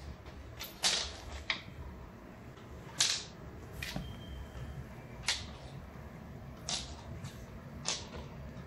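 A d8 die clicking and tumbling on a wooden floor as a kitten bats it about: a series of sharp, separate clicks, about eight in all, the loudest about a second and three seconds in.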